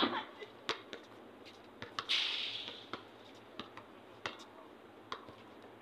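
Scattered sharp knocks of a basketball and sneakers on an outdoor hard court, with a short rattling hiss about two seconds in.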